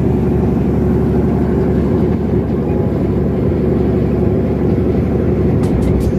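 An engine running steadily at constant speed, a loud low drone with no change in pitch. A few sharp, high ticks come near the end.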